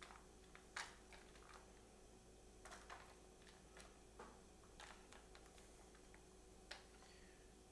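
Faint scattered light ticks and soft rustles from a hand patting and spreading shredded cheese over the food in disposable aluminium foil pans, over a low steady hum; otherwise near silence.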